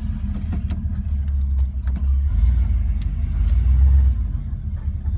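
1990 Ford F-150 running steadily with a deep, low exhaust drone, with a few light rattles and clicks over it.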